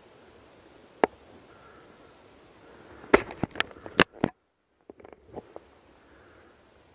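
Footsteps and gear moving on a dry forest floor: a single sharp snap about a second in, then a quick run of loud snaps and knocks about three to four seconds in. The sound cuts out completely for a moment before a few fainter clicks.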